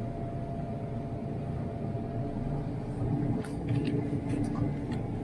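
Grocery store ambience: a steady low rumble with a faint steady hum, and a few light clicks and rattles in the second half.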